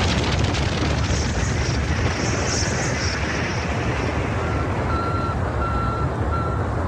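Rocket launch rumble: a steady, deep noisy roar with hiss that starts abruptly. From about four seconds in, a few short electronic beeps sound over it.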